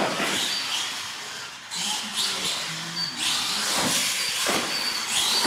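Radio-controlled monster truck running on a concrete floor: its electric motor whining and its tyres hissing as it drives over ramps. Several sharp knocks come from its ramp hits and landings, at the start and again from about four seconds in.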